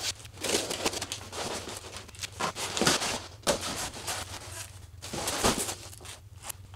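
Cardboard shipping box being opened by hand: irregular rustling, scraping and tearing of cardboard flaps, in short bursts several times.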